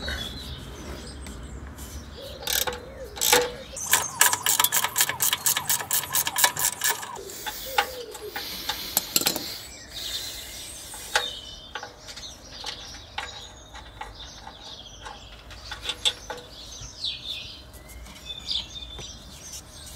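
Hand socket ratchet clicking as it undoes the 13 mm nut on a Range Rover height sensor's link arm, with a 10 mm spanner holding the back; a long fast run of clicks comes about four seconds in, with scattered metal clicks and clinks after. Birds chirp briefly now and then.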